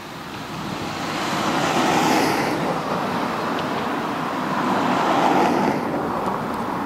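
Boeing 787-8 airliner's turbofan jet engines running as it rolls down the runway after touchdown: a rushing roar with a hissing top that swells over the first two seconds, stays loud with a second swell, and eases near the end as the aircraft passes.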